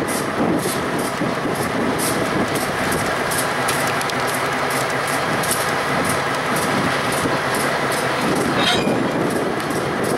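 Switcher-hauled freight train rolling past, its wheels clicking over rail joints in a steady rhythm over the drone of the train. A brief wheel squeal comes near the end.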